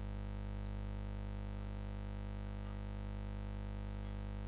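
Steady electrical hum with a faint hiss underneath, unchanging throughout: the background noise of the recording setup.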